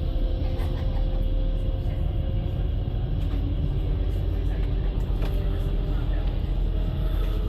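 Ferry's engine running steadily: a continuous deep rumble with faint humming tones above it.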